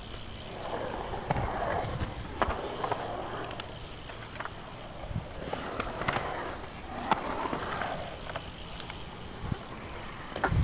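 BMX bike tyres rolling on a concrete skatepark bowl. The rolling noise swells and fades twice as the rider carves through, with scattered sharp clicks and knocks from the bike. A loud thump comes right at the end.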